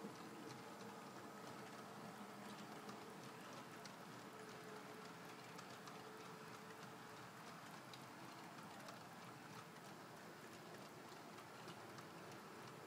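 Model OO gauge coal wagons rolling slowly along the track: a faint, steady patter of small clicks from the wheels on the rails. A faint steady motor hum fades out about halfway through.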